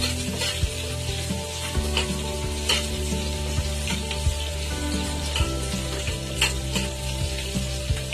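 Square-cut red onion pieces sizzling as they fry in refined oil in a wok, stirred by hand, with sharp scrapes and knocks of the utensil against the pan every second or so.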